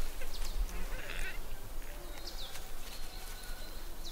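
A few short, high, falling animal squeaks and chirps, with a brief rough call a little over a second in, over a steady low rumble.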